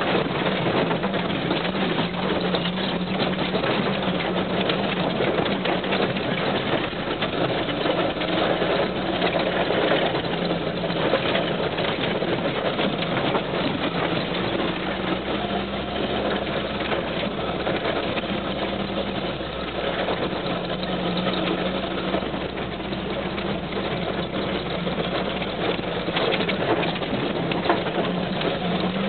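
Off-road vehicle engine running steadily while driving over a rough stony track, heard from inside the cab: a constant engine drone with light rattling of the body.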